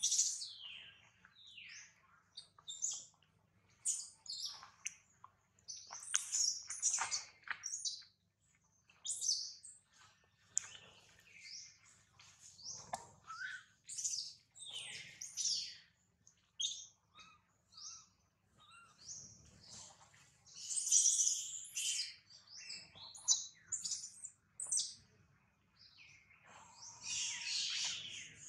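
Infant long-tailed macaque crying: a string of short, high-pitched squeals and chirps, some sliding down in pitch, repeating every second or so with louder clusters near the end. The cries are the sign of an infant in distress, wanting milk and warmth.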